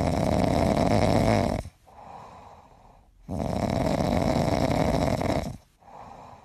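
Sleeping dog snoring: two long, loud snores of about two seconds each, with quieter breathing between them.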